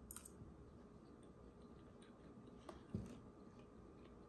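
Faint chewing of a mouthful of salmon, with a few soft clicks near the start and a light knock about three seconds in.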